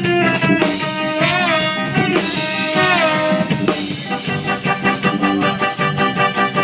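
Live band playing through a sound check: a lead melody with bending, sliding notes over a drum-kit beat. The drumming thins out about half a second in and comes back strongly around four seconds in.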